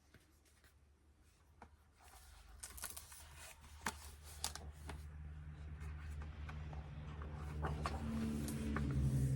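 Paper rustling and soft clicks as the pages of a picture book are handled and turned, faint at first. A low, steady hum builds up under it in the second half.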